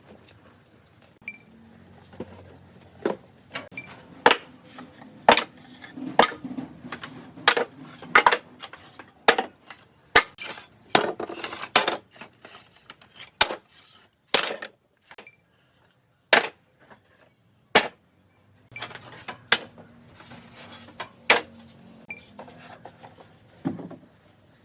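Irregular sharp knocks and metallic clinks, one every second or so, with a sparser stretch about two thirds of the way through: hand tools and metal hardware being handled and set down on wood.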